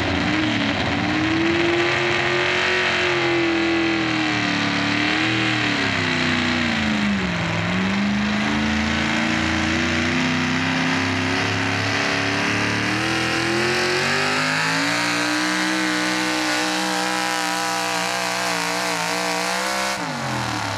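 A 6,400 lb Pro Stock 4x4 pulling truck's engine running at high revs under full load as it drags a weight-transfer sled. The pitch wavers, dips sharply about seven seconds in, climbs again, and drops away near the end as the throttle comes off.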